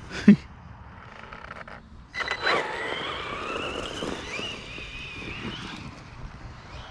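A thump, then an electric RC truck's motor and drivetrain whining as it accelerates and runs, the pitch wavering up and down with the throttle for several seconds.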